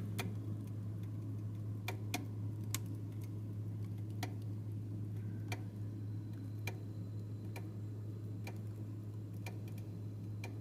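Sharp ticking clicks from inside a refrigerator's freezer compartment, a little more than once a second and unevenly spaced, over a steady low hum. The fridge section has stopped cooling while the freezer still runs.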